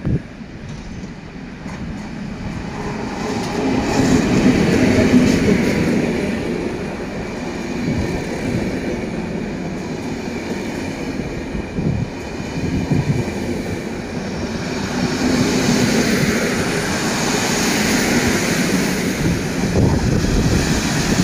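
Electric-hauled passenger train rolling slowly past along the station platform. Its coaches' wheels rumble on the rails with occasional knocks. The sound swells twice as the cars go by.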